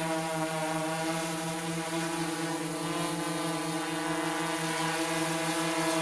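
Quadcopter drone's motors and propellers running in a steady, even buzz while it hovers.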